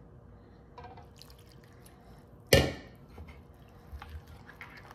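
A metal spoon stirring wet wheat-flour paste in a glass bowl: faint soft scraping and ticks, with one sharp, loud clink against the glass about two and a half seconds in.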